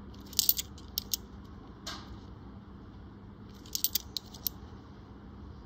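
Australian $1 coins clinking against each other in the fingers as they are sorted. The clinks come in short clusters of sharp clicks, the busiest about half a second in and again around four seconds.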